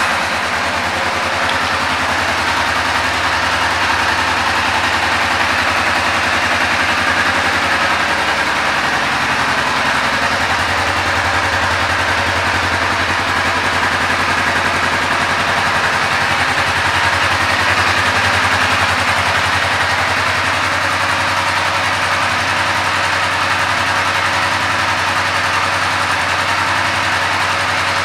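2009 Kawasaki Vulcan 500 LTD's 498 cc parallel-twin engine idling steadily.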